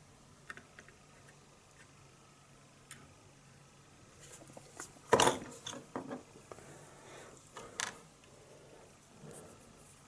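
Scattered small clicks and taps of hard plastic as tiny model-kit parts and a needle glue applicator are handled on a cutting mat, with a sharper knock about five seconds in.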